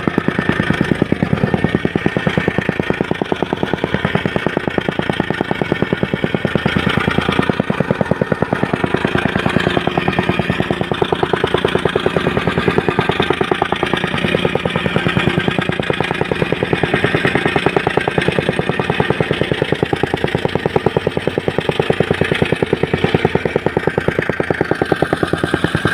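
Construction machinery pounding steadily with a rapid, even beat of many strokes a second.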